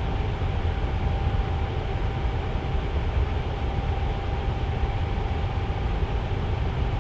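Tower fan running steadily: a low whooshing rush of moving air with a faint steady hum from the motor.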